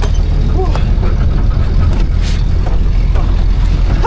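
Truck running on the road, a steady low rumble of engine, road and wind noise heard while riding in it.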